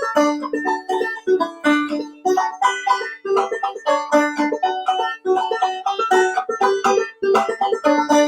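Clawhammer banjo playing an old-time fiddle tune, a quick, even stream of plucked notes with no singing.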